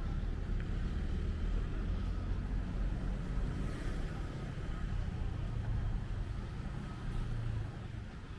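A motor vehicle's engine running close by, a low steady rumble over street noise, dropping away a little before the end.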